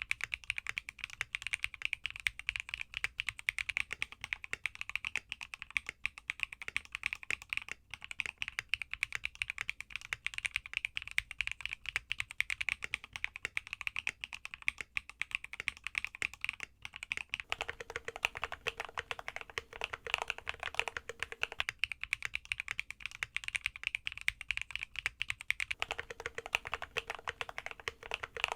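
Continuous fast typing on a Neo65 aluminum mechanical keyboard, a dense run of keystroke clacks. A faint steady hum comes in twice during the second half.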